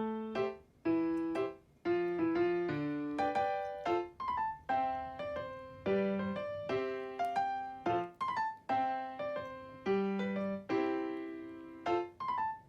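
Background music: a light piano tune of short, cleanly struck notes at an even, lively pace.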